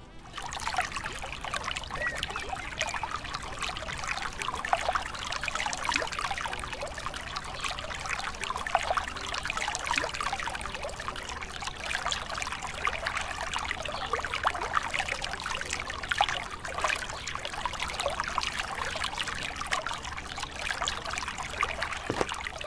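A thin stream of water from a miniature pump spout splashes steadily into a small shallow pond: an even trickle made of many small splashes.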